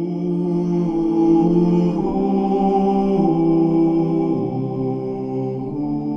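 Church choir singing slow, held chords without accompaniment, in the manner of an Orthodox memorial service chant; the chord shifts about two seconds in, again a little past four seconds, and near the end.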